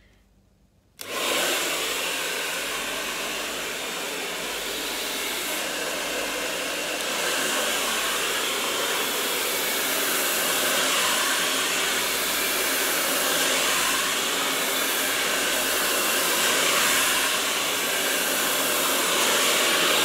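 Black Eagle hair dryer switched on about a second in, then running steadily, blowing air while hair is dried over a brush.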